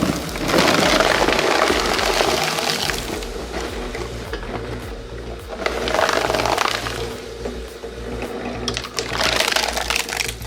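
Industrial shredder grinding and crunching material in three loud rushes, one lasting a couple of seconds near the start and two shorter ones later, over background music with a steady bass.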